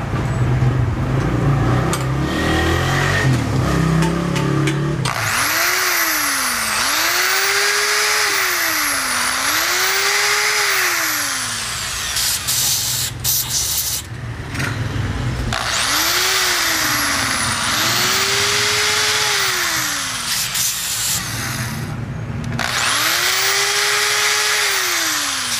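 Handheld electric drill boring into an aluminium carburetor body to drill out an air screw whose head is rounded off. The motor's pitch rises and falls in repeated swells of about two seconds each, with brief stops in between. For the first few seconds there is a rougher, lower grinding without the swells.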